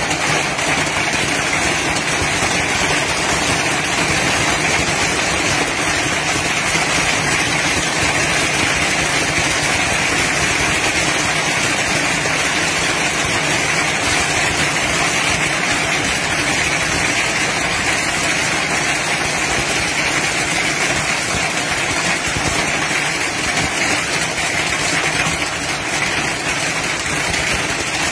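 Heavy fall of medium-sized hailstones, a dense, steady rush of countless small impacts with no break or change.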